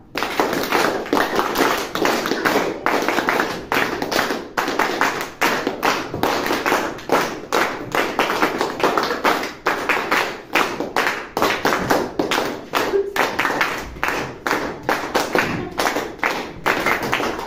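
Applause: a group of schoolchildren and their teacher clapping their hands, many claps overlapping unevenly.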